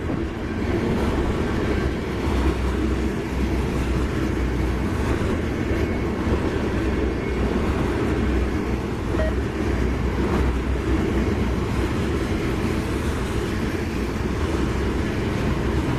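Freight train passing at track speed: a steady rumble of steel wheels rolling on the rails.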